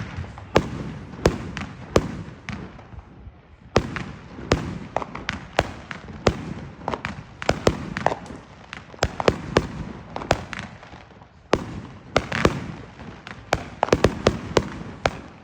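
Consumer fireworks going off: an irregular string of sharp bangs and crackles over a low rumbling wash, with a short lull about three seconds in and the bangs coming thickest near the end.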